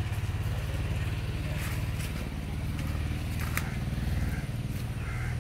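A low-pitched engine running steadily, with a few faint clicks over it.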